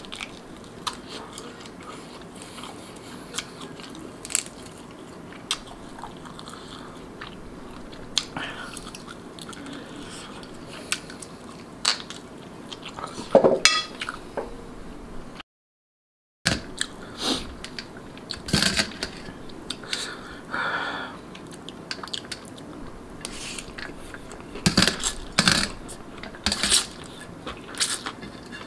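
Close-miked eating sounds: chewing and biting into marinated rabbit meat, with wet mouth clicks and smacks coming in clusters. The sound drops to silence for about a second just past halfway.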